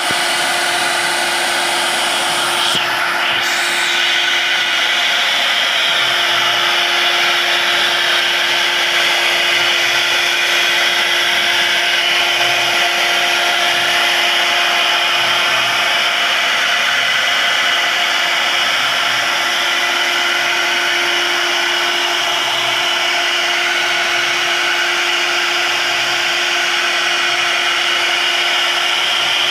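1325 CNC wood router's spindle running with a steady whine as the bit cuts wood, a continuous machining hiss over it.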